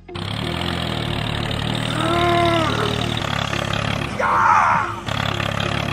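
Tractor engine running steadily, joined by a short rising-and-falling tone about two seconds in and a louder brief rough sound just after four seconds.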